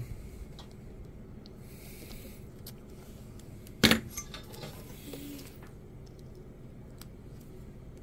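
Hand tools being handled on a workbench: one sharp metallic click with a short ring a little under four seconds in, a few faint ticks, and a light background hiss.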